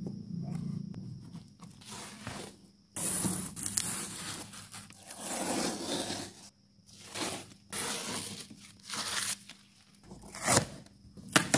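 Packing tape being cut with scissors and ripped off a cardboard box in several long tearing pulls, each lasting a second or so. Two sharp knocks come near the end.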